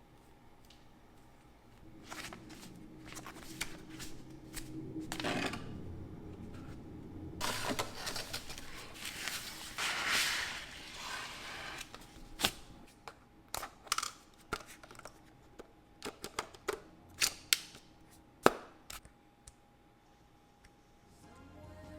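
Unboxing handling sounds: packaging being rustled and moved about, then a run of sharp, separate clicks and taps as the camera and its parts are handled.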